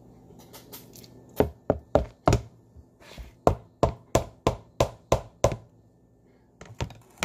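Knife chopping on a cutting board: a run of about a dozen sharp strikes, roughly three a second, then a few more near the end.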